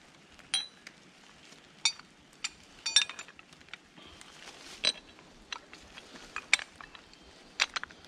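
Steel snatch block and rigging hardware clinking as it is handled and hooked onto a tree strap and winch cable: a string of sharp metallic clinks, the loudest about three seconds in.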